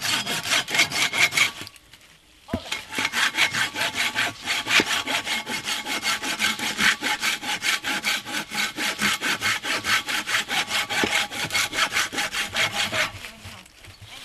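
Hand saw cutting through a short log with quick, even back-and-forth strokes, about four or five a second. There is a brief pause about two seconds in, and the sawing stops near the end.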